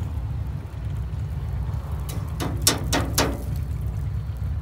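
Bundles of burnt copper wire in metal tongs tapped against a metal grill grate, four quick knocks a little past halfway, shaking the ash of the burnt-off plastic insulation from the copper. A steady low rumble runs underneath.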